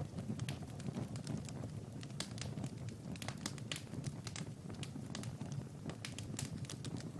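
Fireplace crackling: many irregular sharp pops and snaps over a low, steady rumble of the fire.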